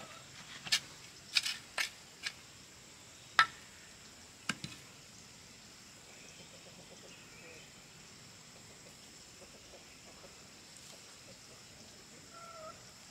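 A hand hoe chopping into the soil, about eight sharp strikes in the first five seconds. Afterwards only a faint steady high insect drone, and a chicken clucks briefly near the end.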